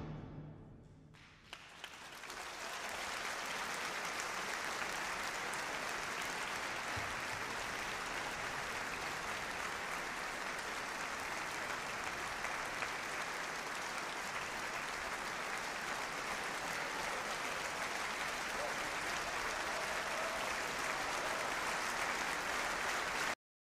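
The last orchestral chord dies away in a reverberant hall, then a concert audience breaks into applause, which builds over a second or so, runs on steadily and cuts off abruptly near the end.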